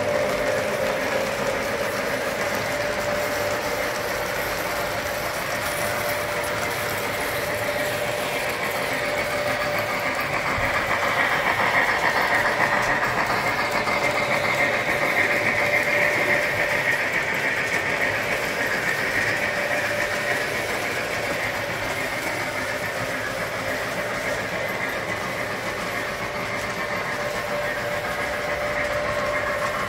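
O gauge model trains running on three-rail track: a steady rolling rattle of wheels over the rails with a constant hum. It swells a few seconds into the middle and then eases back.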